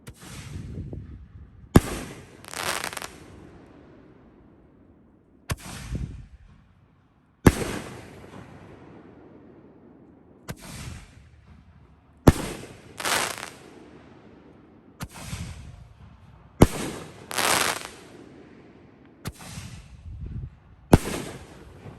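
5-inch titanium-loud canister firework shells going off one after another: about nine sharp, very loud bangs every two to three seconds, each followed by a second, noisier burst.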